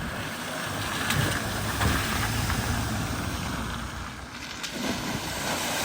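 A vehicle driving through deep flood water at a ford, its engine running under the steady wash and splash of water thrown up around it.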